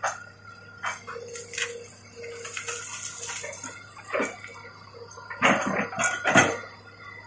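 Crawler excavator working its bucket through piled felled branches and brush: a low steady engine hum under scattered cracks, snaps and clanks, loudest in a cluster about five and a half to six and a half seconds in.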